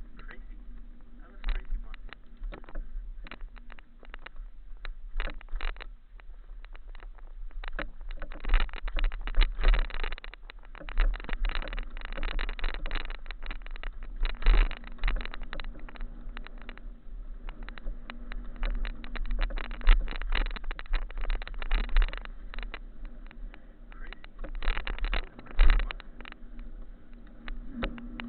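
Mountain bike ridden down a rocky trail: irregular rattling and jolts of the bike with wind buffeting the camera microphone, heaviest in the middle and again near the end.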